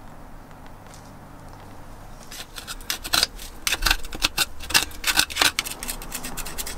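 Screwdriver scraping and clicking against the crusty corrosion deposits inside a corroded engine cylinder. About two seconds in it starts a rapid, irregular run of sharp scratches and clicks.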